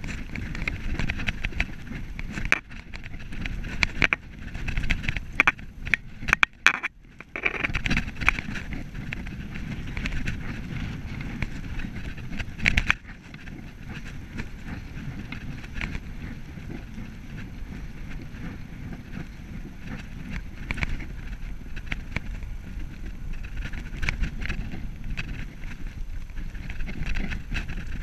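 Bicycle riding noise: steady low tyre rumble and wind on the microphone, with frequent rattling clicks and knocks as the bike rolls over paving, most of them between about 4 and 7 seconds in.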